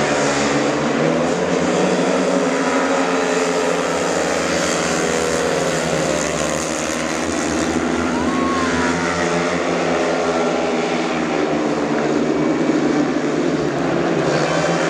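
Four 500 cc single-cylinder methanol speedway bikes racing flat out from the start. Their overlapping engine notes rise and fall as the riders throttle through the bends.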